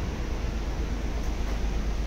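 Steady low rumble and rushing noise on board the cruise ferry Color Magic, with no distinct events.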